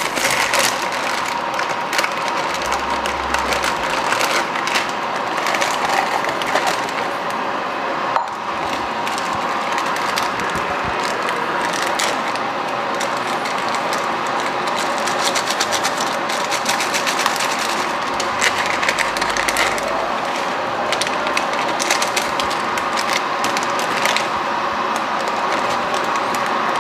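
Steady sizzling and fine crackling of a flatbread pancake frying in a pan on an induction cooktop, with crinkling and rattling as an instant-ramen packet is opened and the dry noodle block and seasoning go into a glass bowl.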